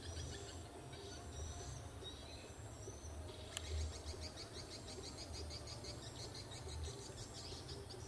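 Several wild birds chirping and calling, with a rapid run of high chirps through the second half, over a low steady rumble. A single sharp click comes about three and a half seconds in.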